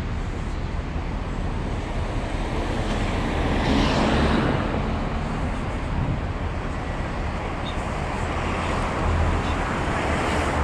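Steady road traffic noise from passing cars, with one vehicle going by louder about four seconds in.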